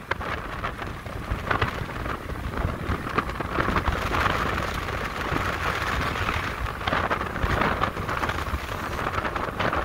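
Wind rushing over the microphone on a moving motorcycle, with a steady low rumble of road and traffic noise. The rush swells and fades, with scattered crackles from gusts hitting the mic.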